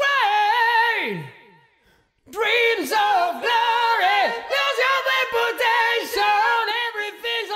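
Isolated vocal track of a song, sung with no instruments. A note slides steeply down and fades out about a second and a half in, a short gap follows, and then the singing comes back and carries on.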